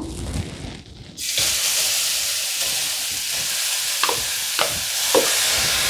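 Grated carrot sizzling steadily in hot ghee in a nonstick kadai. The sizzle starts abruptly about a second in as the carrot lands in the fat. A few light taps come later as a spoon scrapes the carrot out of a bowl.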